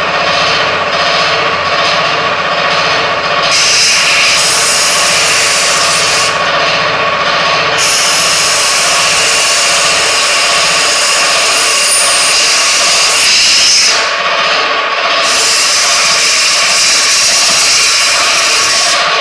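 Air compressor running steadily, with a compressed-air blow gun hissing in three long blasts, starting about three seconds in, as it blows grit out of a chainsaw bar.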